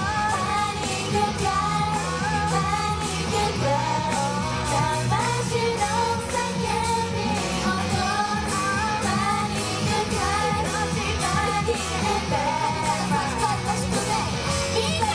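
Female vocal group singing a pop song live into microphones, over music with a steady beat and bass.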